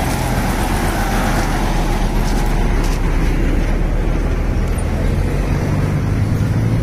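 Isuzu truck engine running close by under road traffic noise, its low hum growing louder near the end as the truck draws near.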